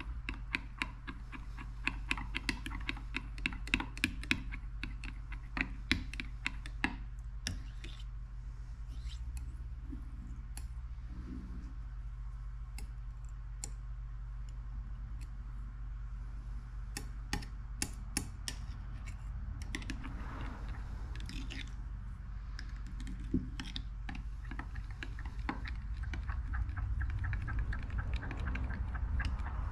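Metal stirrer clinking and scraping against a glass measuring cup while pearl powder is mixed into liquid plastisol, in runs of quick irregular clicks with a quieter spell in the middle; the pearl powder needs long mixing to break up its clots. A steady low hum runs underneath.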